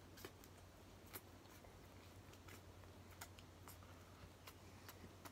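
Near silence: a low steady hum with faint, irregular clicks of someone eating with chopsticks from a foam takeout box.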